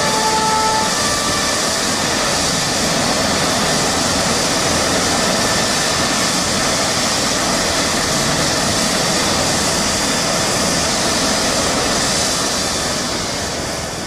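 Eurocopter EC135 rescue helicopter on the ground with its turbines running and rotor turning: a steady, loud rushing hiss over a low rumble, fading near the end.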